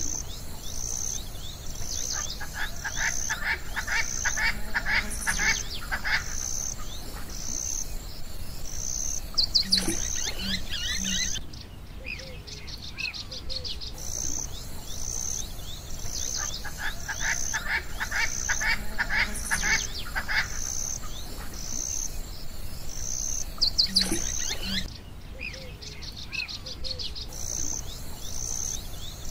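Looped nature ambience: birds trilling and calling over a high chirp that pulses about once a second. The same stretch of sound repeats about every fifteen seconds, with a brief drop in the high chirping before each repeat.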